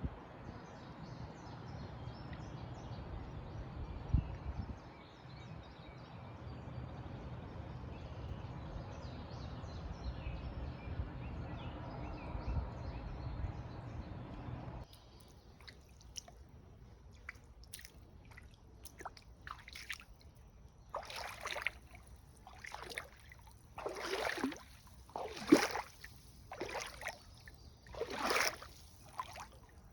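A steady rushing noise with a low rumble, which cuts off about halfway through. It gives way to irregular water sloshes and splashes that come more often near the end.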